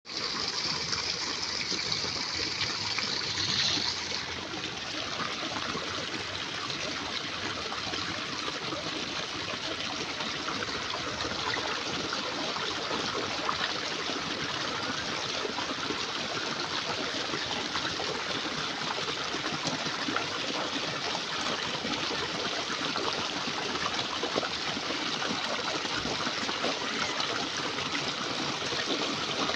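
Water pouring steadily from a pipe and splashing and trickling over rocks, a continuous rushing hiss that is higher and brighter for the first four seconds.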